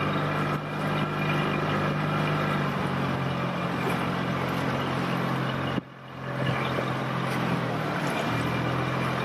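Outboard motor of an inflatable rescue boat running at a steady speed, over rushing river water. The sound drops away briefly about six seconds in, then picks up again.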